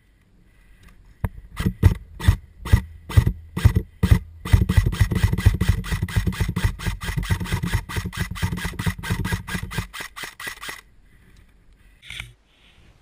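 Airsoft rifle firing: a quick string of single shots, then a long burst of rapid automatic fire lasting about six seconds, with the gun's mechanism humming under the shots.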